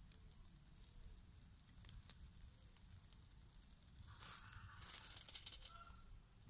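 Quiet crackling and sizzling from chicken pieces grilling on a wire mesh over charcoal, with a few faint pops. There is a short, louder burst of hissing rustle about four to five seconds in.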